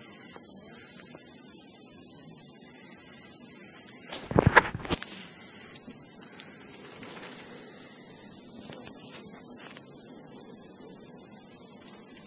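Steady high hiss, broken about four seconds in by a short, loud knock and rattle of the camera being handled.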